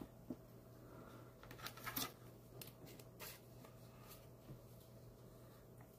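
Near silence, broken by faint rustles and light ticks of trading cards being handled, over a low steady hum.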